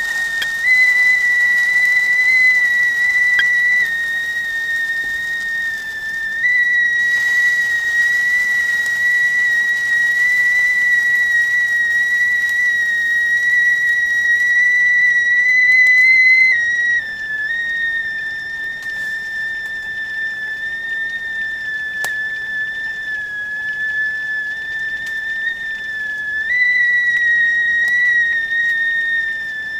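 Whistling kettle sounding at the boil: one steady high whistle that shifts slightly in pitch and loudness every several seconds, over a faint hiss of steam.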